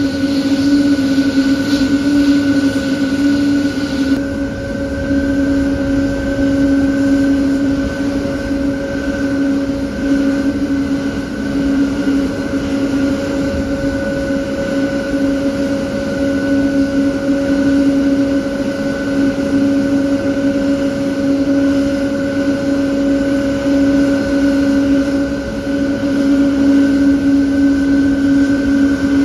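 Jet airliner's turbofan engines running at idle as it taxis: a steady hum with a few steady higher tones held throughout. A high hiss in the first four seconds drops away suddenly.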